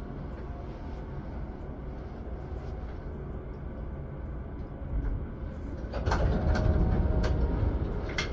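PATH rapid-transit train running on its rails: a steady low rumble that grows louder about six seconds in, with several sharp clicks over the louder stretch.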